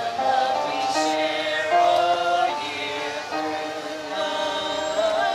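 A group of carolers singing a carol in harmony, in long held notes.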